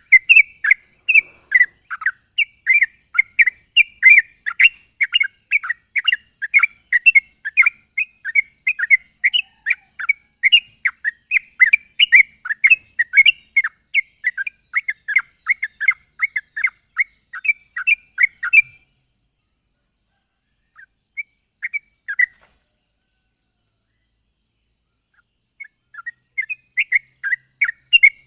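Yellow-vented bulbul (trucuk) calling: a rapid, continuous chatter of short, sharp notes, several a second. The chatter cuts off abruptly about two-thirds of the way through, a few scattered notes follow, and it starts again near the end.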